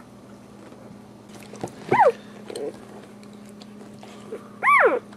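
Newborn Boxer puppies squealing: two short, high squeals that rise then fall in pitch, one about two seconds in and one near the end, with a fainter squeak between them.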